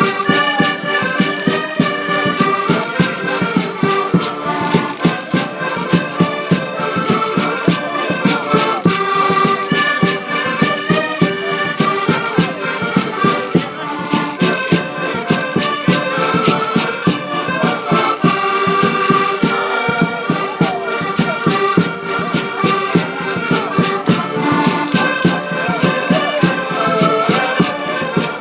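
A live band playing traditional folk music: a sustained melody over a steady, driving beat, without a break.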